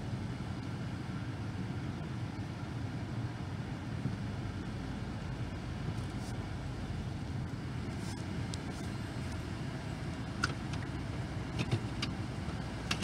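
Car engine idling, a steady low rumble heard from inside the cabin, with a few light clicks near the end.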